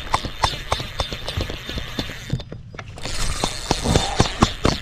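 Spinning reel clicking rapidly, several clicks a second, as its handle is cranked against a fish on a tight line: the drag is set loose and slipping. The clicking stops briefly about halfway through, then starts again.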